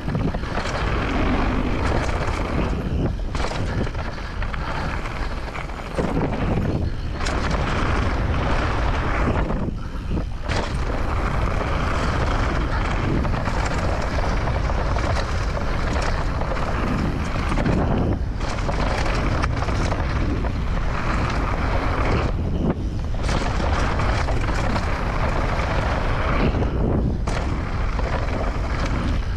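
Wind rushing over the microphone of a mountain bike on a fast downhill run, with the tyres rolling over a dirt trail and the bike rattling. The noise dips briefly several times.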